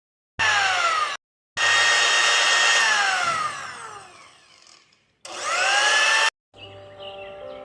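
A small electric motor whirring in short bursts separated by abrupt cuts. Its pitch holds steady, then falls away as it winds down, and near the end it spins back up before cutting off suddenly.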